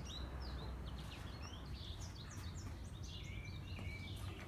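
Small birds chirping and singing: many short, quick calls that slide up and down in pitch, some overlapping, over a steady low rumble.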